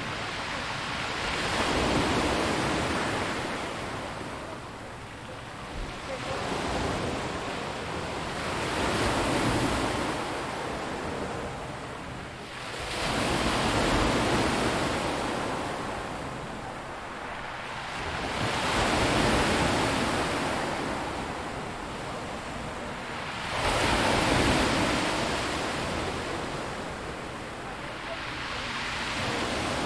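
Waves breaking on a rocky beach, the surf swelling and washing back in a surge about every five seconds.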